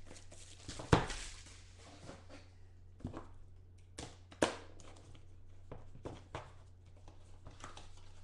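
A cardboard trading-card box being slit open with a small folding knife and handled: a few sharp taps and knocks, the loudest about a second in, with light rustling between. A low steady hum runs underneath.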